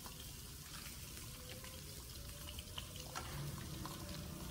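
Rockfish fillet frying skin side down in oil in a pan on medium heat: a steady sizzle with scattered small crackles.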